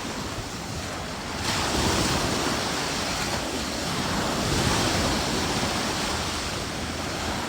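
Ocean surf washing onto a beach, swelling and easing, with wind buffeting the microphone.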